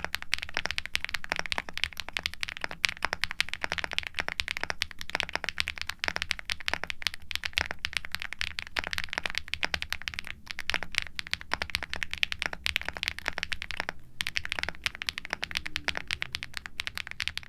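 Continuous fast typing on a mechanical keyboard with HMX Macchiato linear switches on a PC plate, fitted with double-shot ABS MT3 keycaps and full case, plate and switch foam. It gives a clacky but slightly muted keystroke sound, with brief pauses about ten and fourteen seconds in.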